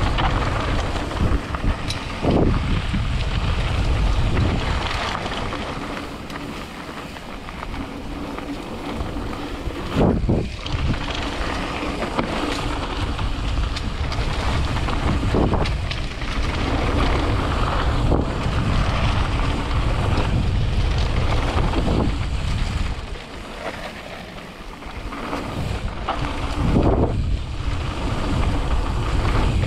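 Wind rushing over the microphone of a camera riding down a mountain-bike trail, mixed with knobby tyres rolling on dirt. It swells and eases as the speed changes, with a few short knocks from bumps.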